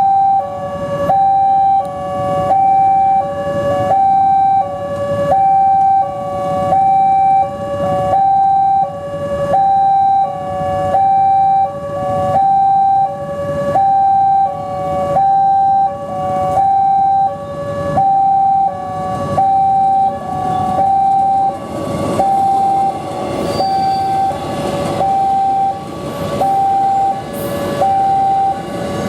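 Railway level-crossing alarm, a double set, sounding an electronic two-tone warning that steps high and low in a steady cycle about every second and a quarter, signalling that a train is coming. About three-quarters of the way in, the noise of the approaching train builds underneath it.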